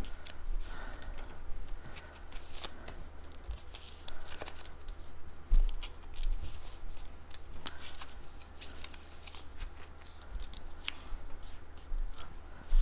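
Cardstock being folded back and forth along its score lines and creased flat, with irregular crackling and crisp clicks from the paper, and one sharper knock about five and a half seconds in.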